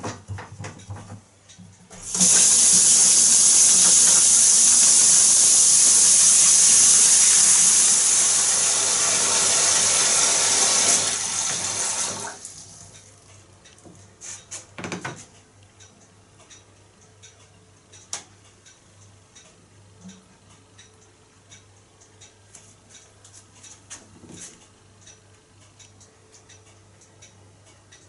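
Bath tap running, water pouring into a bathtub for about ten seconds, then shut off. A few faint knocks and ticks follow, one louder knock a few seconds after the water stops.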